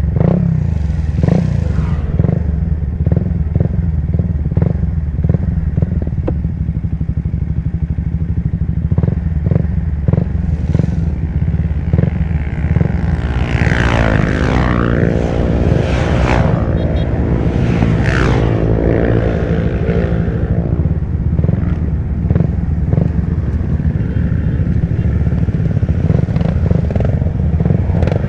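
Motorcycle engine running steadily close by. From about 13 to 20 seconds in, several motorcycles ride past, their engine pitch rising and then falling as they go by.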